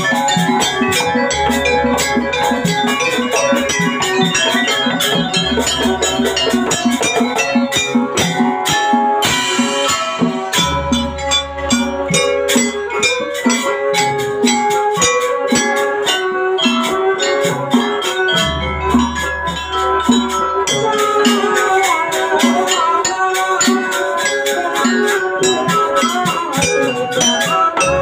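Live jaranan music: a gamelan-style ensemble of drums and pitched metal percussion playing a steady, driving rhythm, with deep low notes sounding every few seconds.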